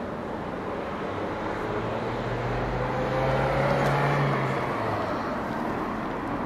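City street noise of traffic, with a steady low hum that comes in about a second in and fades about five seconds in, and a faint gliding tone near the middle.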